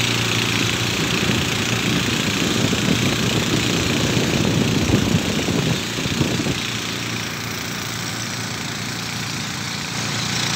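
Small motorboat's engine running steadily. The sound turns rougher in the first half, then eases off about six seconds in and picks up again near the end.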